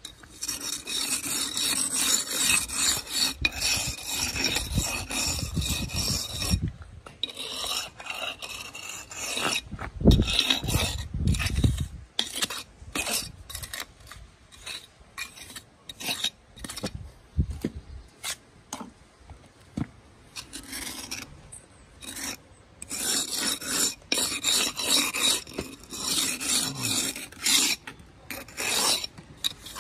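Steel trowel scraping along the fresh mortar joints of a concrete block wall, cleaning off the excess mortar in runs of quick strokes. The scraping pauses about halfway through, with a few dull knocks about ten seconds in and some single strokes, then picks up again near the end.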